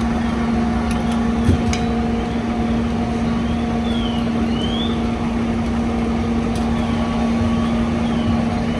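Heavy diesel fire apparatus running steadily at a fire scene: a constant engine drone with a steady pitched hum over a wide rumble. The hum drops out near the end. Faint short chirps repeat high above it.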